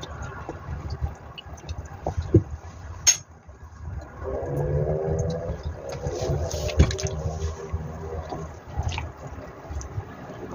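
A motorcycle engine passing outside an open window, a steady hum for several seconds from about four seconds in. Over it a metal spoon clinks against a ceramic soup bowl a few times and stirs the broth.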